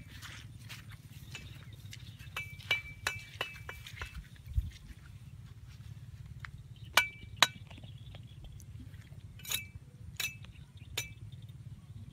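About a dozen light, ringing clinks at irregular moments as a fishing net is handled, bunched about two to four seconds in, with a close pair near seven seconds and three more towards the end. There is one low thud about four and a half seconds in.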